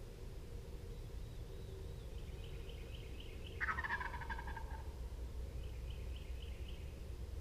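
A wild turkey gobbler gobbles once about halfway through: a sudden, loud rattling call about a second long that drops in pitch.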